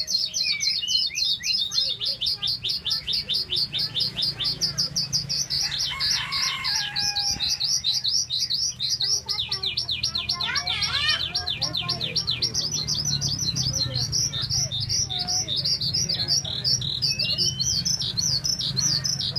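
Caged Oriental skylark singing non-stop: rapid repeated high notes at about six a second, broken by more varied warbled phrases twice in the middle. A steady low hum runs underneath.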